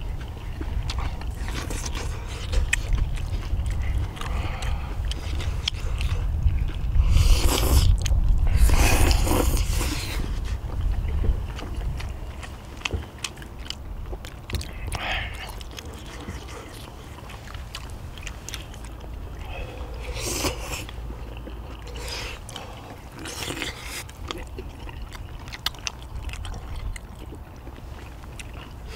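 Close-up eating sounds: chewing, with small clicks of chopsticks against bowls. Under it runs a low rumble of wind on the microphone that is heaviest in the first third, and a few loud hissing bursts come about a quarter of the way in.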